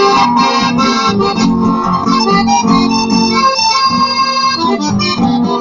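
Live instrumental chamamé: an accordion playing the melody over acoustic guitar accompaniment.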